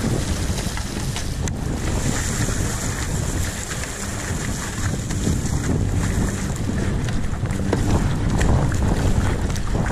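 Wind buffeting the microphone over the splash and wash of water from paddle strokes and the hull of a kayak moving through choppy water. The noise is steady and rough, without let-up.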